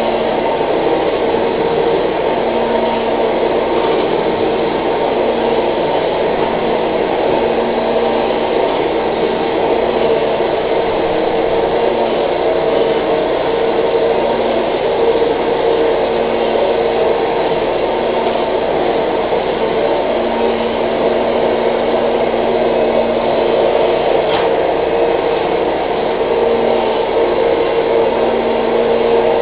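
Vacuum cleaner running steadily: an even motor hum over a constant rushing noise.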